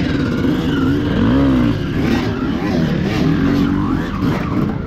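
Enduro dirt-bike engines revving, rising and falling in pitch several times.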